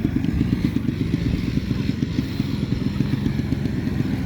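A small motorbike-type engine running at a steady speed, with a fast low putter.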